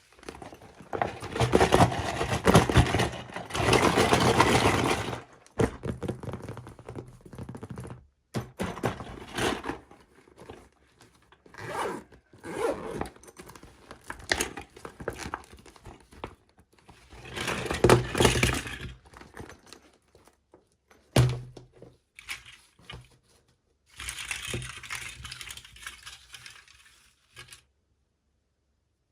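Packaging being handled and torn open by hand: stretches of tearing, scraping and crinkling, with a couple of sharp knocks about eight seconds in and again about two-thirds of the way through.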